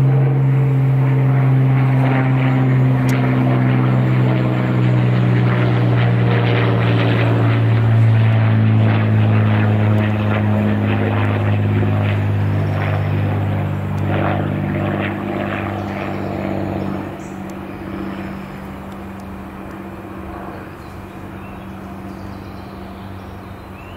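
Cessna 182S Skylane's six-cylinder Lycoming IO-540 engine and propeller running as the plane flies overhead. The engine note sinks slowly in pitch as it passes, and the sound fades steadily over the second half as it flies away.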